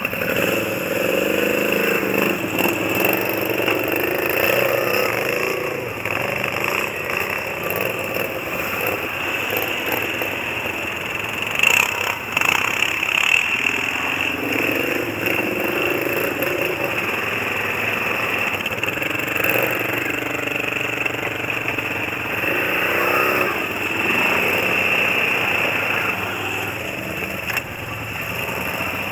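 Quad bike (ATV) engines running, revving up and down several times.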